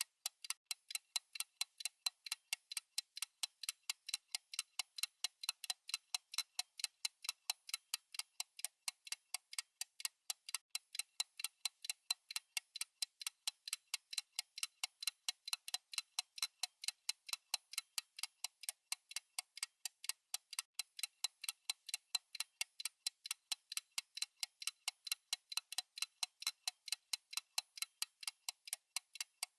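Fast clock-style ticking from a countdown timer: an even, unbroken run of sharp, thin ticks at about four a second.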